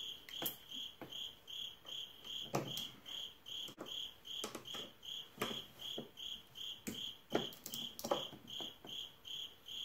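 A cricket chirping steadily, about two and a half high chirps a second. Over it come irregular metal clicks and knocks of a wrench working a tight nut on a riding mower's steering column.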